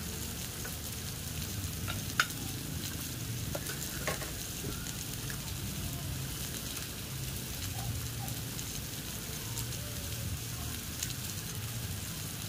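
Meat sizzling on a domed moo kata grill pan over a charcoal stove: a steady hiss broken by a few sharp clicks, the loudest about two seconds in.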